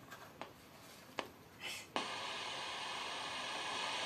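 A few clicks from a portable radio being handled and switched, then about two seconds in the radio starts giving out a steady static hiss with no station coming through.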